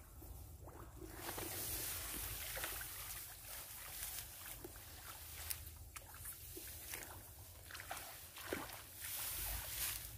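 Rice stalks and dry grass rustling as they are pushed aside by hand, with many small snaps and clicks scattered through it and a low rumble underneath.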